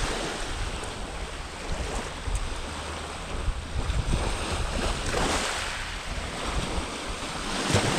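Small waves washing onto the beach, the wash swelling about five seconds in and again near the end, with wind buffeting the microphone.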